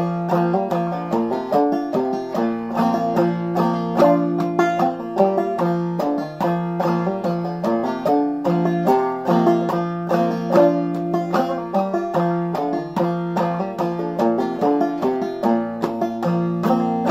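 Five-string banjo played clawhammer style in double C tuning (gCGCD), an old-time fiddle tune. A quick, even run of plucked notes with strings ringing steadily underneath.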